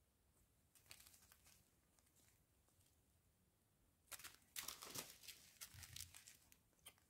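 Small clear plastic bag of round diamond-painting drills crinkling faintly as it is handled, briefly about a second in and more for about two seconds from four seconds in.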